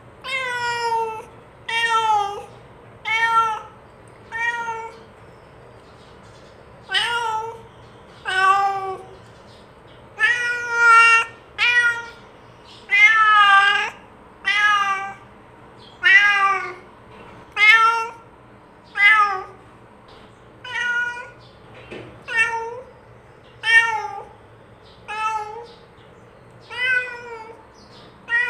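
Domestic cat meowing over and over: about twenty short meows at a fairly steady pace, roughly one every second and a half, some rising and falling in pitch.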